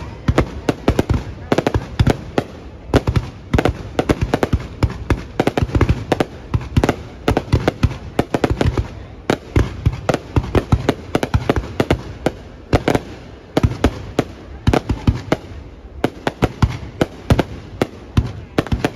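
Aerial fireworks display bursting in rapid, irregular bangs, several a second, with no letup.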